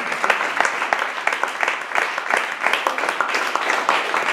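Audience applauding, a dense and steady run of hand claps.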